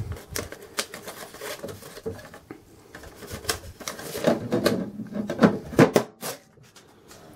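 A thermal till roll being handled and fed into a cash register's printer: paper rustling and crinkling mixed with irregular clicks and knocks of the plastic printer cover being lowered and snapped shut, busiest about four to six seconds in.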